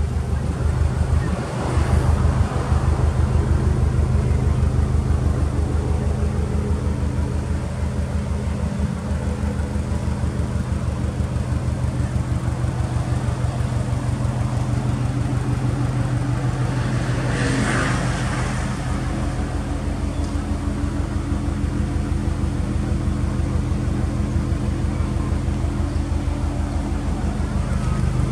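Subaru Impreza WRX STI (GDB) turbocharged flat-four engine idling steadily through an aftermarket Kakimoto muffler, with an even low pulsing exhaust note that grows louder near the end. A brief rush of noise comes about eighteen seconds in.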